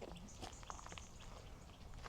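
Faint, irregular ticks and rustles, such as steps and handling on a riverside path, over a low rumble.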